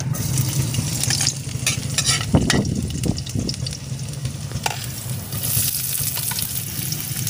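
Spices sautéing in hot oil in a pan, sizzling steadily while a utensil stirs them, with a few knocks and scrapes against the pan about two to three seconds in and a steady low hum underneath.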